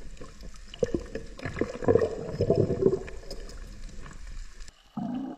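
Underwater sound: gurgling bubbles with irregular clicks and knocks, busiest about two to three seconds in, as a freediver handles a speared red snapper on the spear shaft. Near the end the sound drops away suddenly and a brief low rising tone follows.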